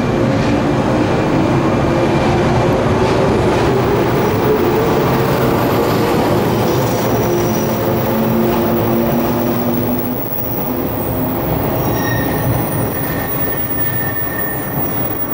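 JR 415 series resistor-controlled electric train pulling away from a station: its traction motors whine, rising in pitch as it accelerates, over the rumble of wheels on rail. The sound drops off about ten seconds in as the last car goes by.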